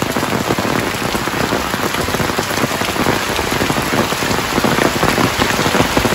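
Heavy rain falling steadily, a dense patter of drops striking the large umbrella held overhead.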